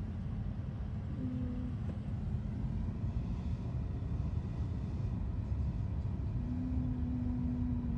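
Interior road and engine noise of a Jeep rolling slowly, heard from inside the cabin: a steady low rumble. A low steady hum comes in briefly about a second in and again from about six seconds in.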